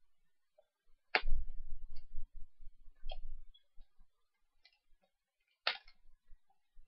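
Plastic bubble wrap being cut and unwrapped: a few sharp crackles, the loudest about a second in and near the end, with softer handling bumps and rustles in between.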